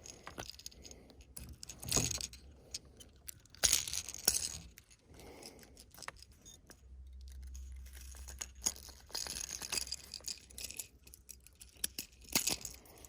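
Metallic jangling and clinks with a few sharp knocks, from handling a just-caught bass and the lure's hooks in a boat.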